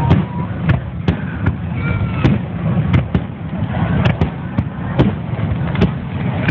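Aerial firework shells bursting overhead in quick, irregular succession: sharp bangs about two or three a second over a continuous low rumble of booms.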